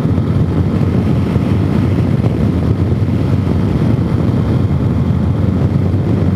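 Suzuki DR-Z400S single-cylinder four-stroke engine running steadily at cruising speed on a ride, freshly rejetted for its aftermarket exhaust and intake mod, mixed with wind rushing over the microphone.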